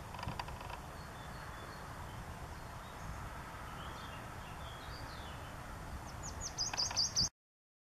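Small songbirds singing over a steady low rumble, with a few faint high notes in the middle and a quick loud run of sharp high notes near the end. The sound cuts off abruptly just before the end.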